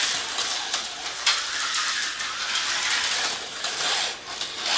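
Vintage Tyco HO slot cars running around a plastic track: a steady high whir and hiss from the small electric motors and pickups on the rails, with scattered clicks.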